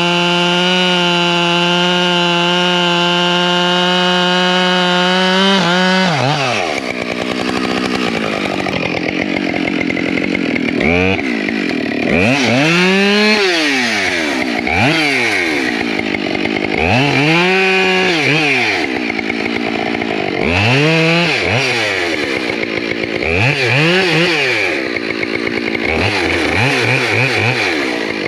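Husqvarna 572 XP two-stroke chainsaw held at full throttle in a cut for about six seconds, then dropping sharply to idle. After that the engine revs up and falls back again about seven times, with a few quick throttle blips near the end.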